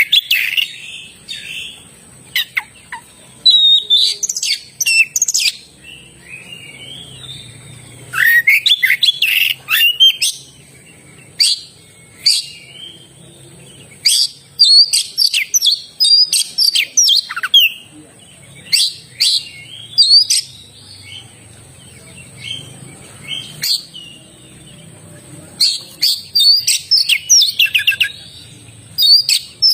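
Oriental magpie-robin (kacer) singing loudly and continuously, in phrases of quick, varied whistles, chirps and sliding notes a second or two long, separated by short pauses.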